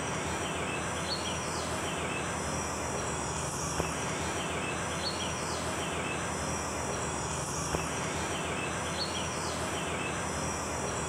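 Steady insect chorus over a constant hiss, with short faint chirps every second or two and a couple of small clicks.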